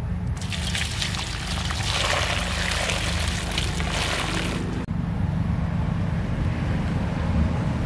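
Water poured from a pot splashes steadily onto a slaughtered rooster in a metal basin for about four seconds, then stops abruptly. A steady low rumble remains afterwards.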